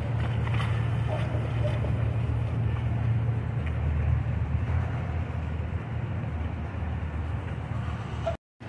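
Twin outboard motors on a centre-console boat running at low speed, a steady low rumble that eases slightly as the boat moves off, with water noise around it. The sound cuts out briefly near the end.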